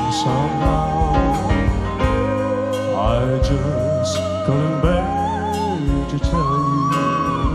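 Live band playing an instrumental break in a slow ballad. A high, sustained melody line with vibrato glides over bass, keyboards and steady drum hits.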